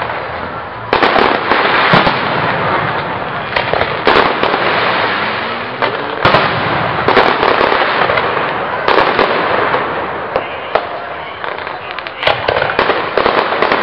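Fireworks display: aerial shells bursting in a run of sharp bangs, roughly one to two seconds apart, over a continuous crackle of sparks.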